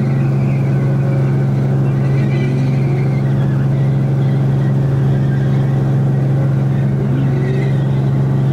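Helicopter in flight heard from inside its cabin: a loud, steady, even drone with one strong low hum and fainter overtones above it.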